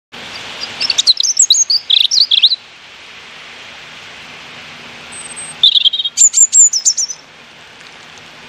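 European robin singing: two short phrases of quick, high warbling notes, one about a second in and another near six seconds, over a steady hiss.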